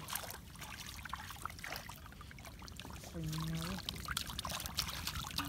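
Shallow muddy water splashing, sloshing and trickling as hands grope through it and lift out a catch, with many small wet splashes.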